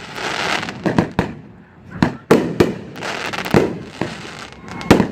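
Several 500 g consumer firework cakes firing together in a finale barrage. There is an irregular string of sharp bangs, about eight in five seconds, with stretches of crackling hiss between them.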